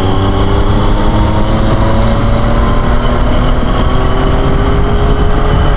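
Triumph Tiger 800's inline three-cylinder engine pulling steadily on the move, its pitch slowly rising as the bike gathers speed, over a heavy low rumble of wind on the microphone.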